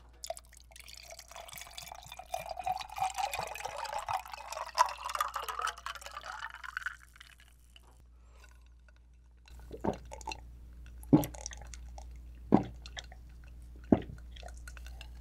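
Aloe juice poured from a plastic bottle into a glass, its pitch rising as the glass fills for about seven seconds. After a short pause come about four gulps, spaced evenly, as the juice is swallowed.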